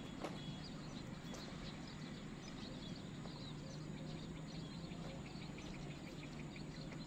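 Steady outdoor background noise with a low hum and many faint, scattered bird chirps.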